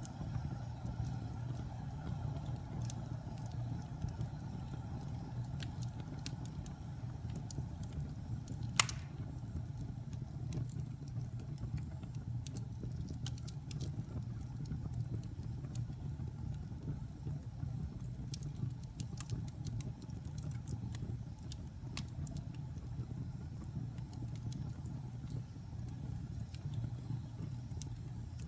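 Wood fire burning in a fireplace: a steady low rumble with scattered crackles, and one sharp loud pop about nine seconds in.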